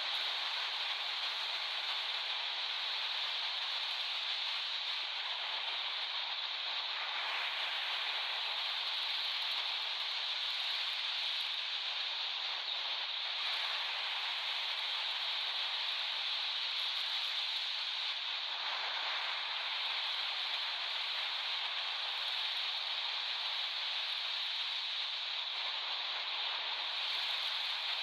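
Sea waves breaking and washing on a beach: a steady rush of surf that swells a little a few times.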